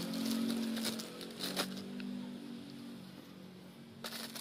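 Plastic toy packaging rustling and crinkling as bagged toys are handled and shifted, with scattered clicks and a denser burst of crinkling near the end, over a steady hum.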